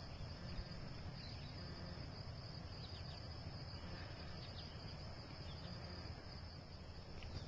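Steady high-pitched insect chorus of the crickets kind, with a few short high chirps over a low rumble.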